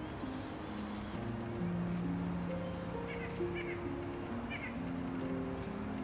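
A steady chorus of crickets, one continuous high trill, over soft background music of slow held low notes. A few faint short chirps come through around the middle.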